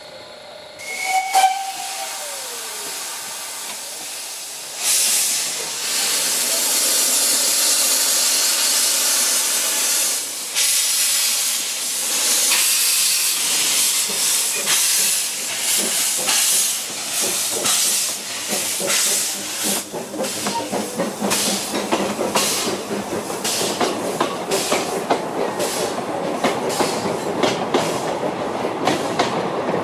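A narrow-gauge steam locomotive gives a short whistle toot, then steam hisses loudly from its open cylinder drain cocks as it starts away with its train. In the second half, rhythmic exhaust chuffs pulse under the hiss as it gets under way.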